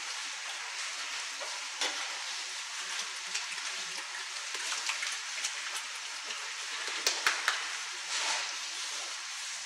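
Sow barn ambience: a steady hiss with scattered light clicks and knocks, a small cluster of them about seven seconds in.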